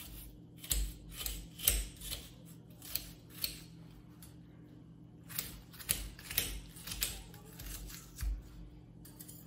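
Dry papery skin being peeled off a red onion by hand: irregular crackles and rustles, with a few soft low bumps.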